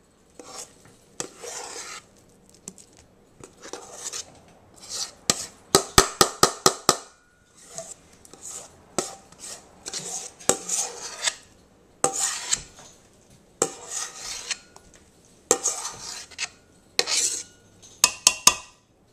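Slotted metal spoon stirring thick mashed potatoes in a stainless steel pot, with repeated scrapes a second or so long against the pot. A quick run of sharp metal clinks comes about six seconds in, and another near the end.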